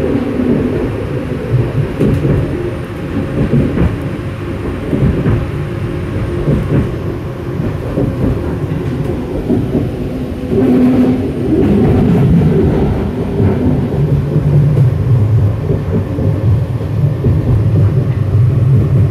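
Detroit People Mover car running along its elevated guideway, heard from inside the car: a steady low rumble of its steel wheels on the rails. It grows louder about ten seconds in.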